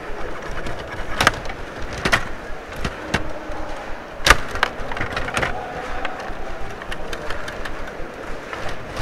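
Table hockey game in play: irregular clacks and rattles of the control rods and the plastic players knocking the puck and the rink's boards, with one loud sharp knock about four seconds in.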